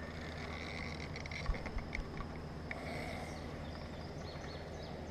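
Quiet outdoor river ambience with faint bird chirps, and a few light clicks from a baitcasting reel being handled, about one and a half to two and a half seconds in.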